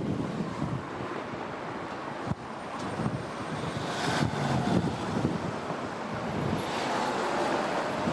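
Strong wind buffeting the microphone, with road traffic passing, swelling about halfway through and again near the end.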